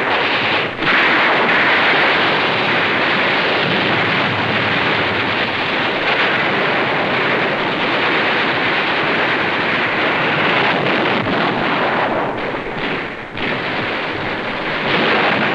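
Steady, dense din of battle: gunfire and explosions running together, dipping briefly about twelve seconds in.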